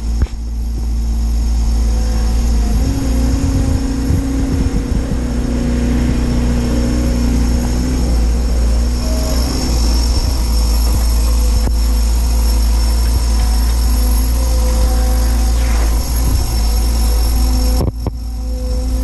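Doosan DX180 excavator's diesel engine running steadily under work, with a deep rumble and a steady hydraulic whine whose pitch shifts as the machine works.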